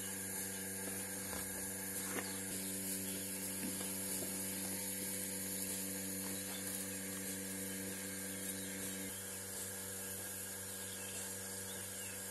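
Steady mechanical hum of a running machine, a drone with several pitched layers. Some of the layers drop out about nine seconds in, leaving a lower hum.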